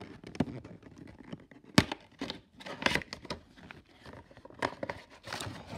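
Action-figure box and plastic packaging being opened and handled by hand: a run of irregular crinkles, scrapes and clicks, with one sharp snap a little under two seconds in.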